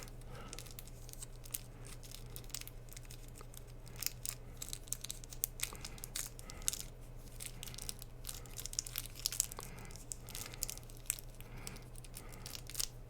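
Faint crinkling, rustling and tearing of product packaging being opened and handled by hand, in many small irregular crackles, over a steady low hum.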